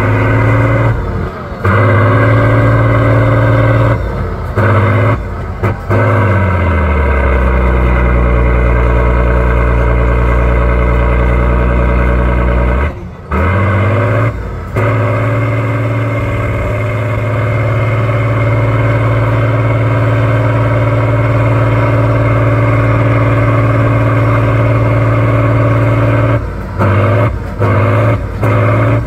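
A truck-trial competition truck's diesel engine revving hard under load. The revs fall away about a quarter of the way in and run low, then climb again before the middle and stay high, broken by brief dips from throttle lifts, several of them near the end.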